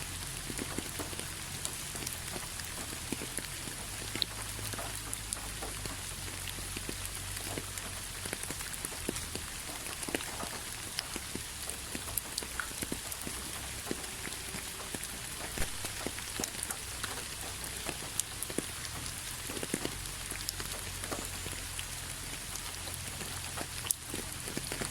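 Rain falling steadily, with many separate drops tapping irregularly over a continuous hiss of rainfall.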